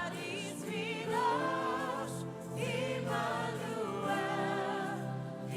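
Gospel worship choir singing with strong vibrato in sung phrases, over steady held accompaniment notes.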